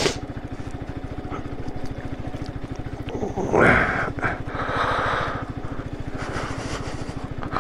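Motorcycle engine running steadily at low speed as the bike is ridden slowly over snow, its firing pulses even throughout. Two short spells of hiss come about halfway through.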